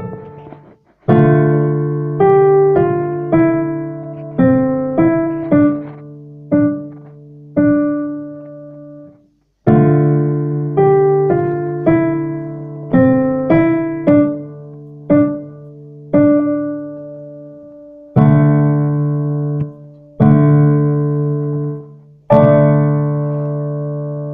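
A simple melody played on a piano, single notes ringing and fading over a held low chord, in two phrases with a short break about nine seconds in. It ends on three long held chords.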